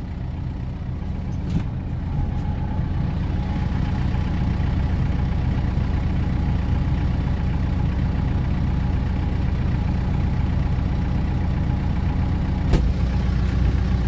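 Compact loader tractor's engine running steadily at idle. A sharp knock comes about a second before the end, after which the engine's low rumble gets stronger.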